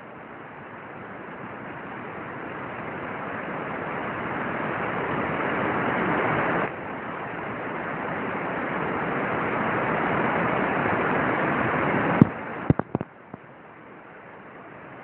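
A steady rushing noise that slowly grows louder, drops suddenly about seven seconds in and builds again, followed by a few sharp clicks or knocks near the end.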